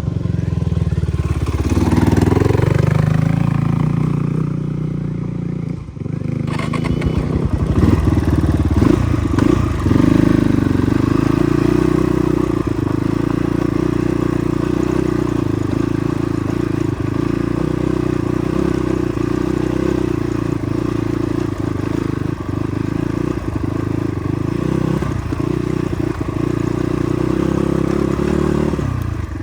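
Motorcycle engine running under way on a rough dirt track. Its pitch dips and climbs with the throttle over the first few seconds, then holds steady.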